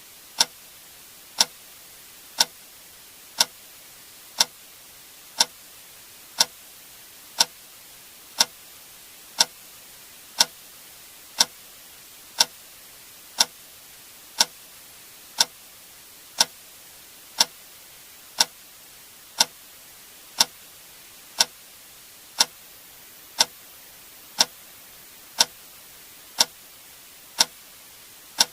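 Sharp clicks at an even one per second, like a clock's tick or a metronome, over a faint steady hiss.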